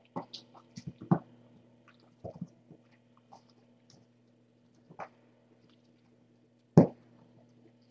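Scattered soft clicks and knocks from kittens moving about and playing, the loudest knock nearly seven seconds in, over a steady low electrical hum.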